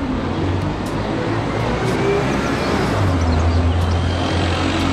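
Single-deck city bus driving along a street over steady traffic noise. Its engine hum grows louder about three seconds in as it passes close by.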